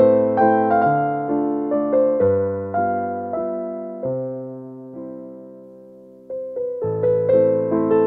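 Background music: gentle piano playing a slow melody of single notes over held low notes. The notes die away to a lull about six seconds in, and then a new phrase begins.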